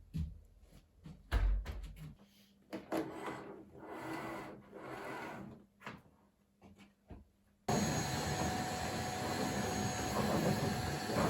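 Household cleaning sounds: a few knocks and clunks of things being handled, then several swishing wiping or brushing strokes. About two-thirds of the way in, a vacuum cleaner switches on abruptly and runs with a steady whine.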